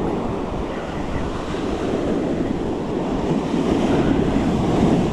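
Ocean surf washing up a sandy beach, with wind buffeting the microphone; the wash swells louder near the end.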